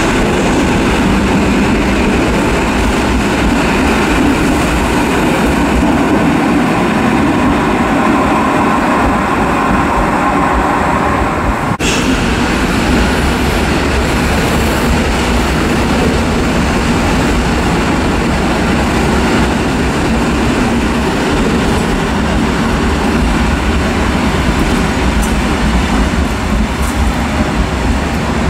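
Polregio electric multiple unit running through the station, a steady rumble of wheels on rail and running gear. The sound breaks off abruptly about twelve seconds in and goes straight on at a similar level.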